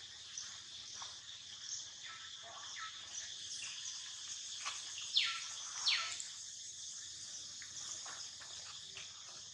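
Steady high-pitched insect chorus of crickets or cicadas, with a few faint chirps. About five and six seconds in come two loud, short calls that sweep sharply downward in pitch.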